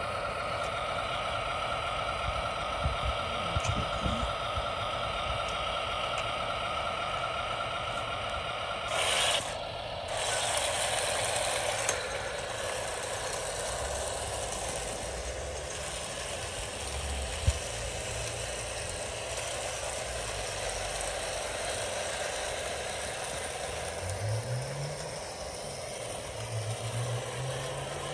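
Electric motor and gearbox of a radio-controlled scale crawler tractor whining steadily as it drives, with the tracks rattling. A brief loud rush of noise comes about nine seconds in, and near the end the low tone rises twice.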